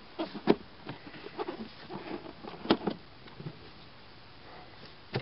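A 1994 Jeep Cherokee's plastic air filter housing lid is being handled and pressed into place. It gives a few sharp clicks and knocks, the loudest about half a second in and two close together near the three-second mark, with light plastic rubbing between them.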